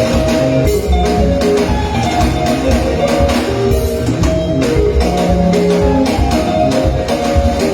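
Live band playing sungura music during a sound check: electric guitar lines over bass and drums with a steady beat.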